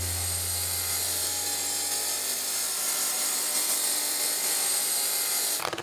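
Wet tile saw's diamond blade cutting tile: a steady hiss that cuts off suddenly near the end.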